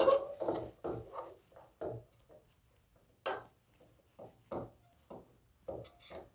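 A spoon stirring and scraping besan roasting in ghee in a pan: short, irregular scrapes and knocks, about two a second, heaviest at the start and thinning out in the middle.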